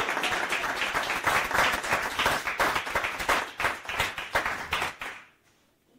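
A congregation clapping its hands together, dying away about five seconds in.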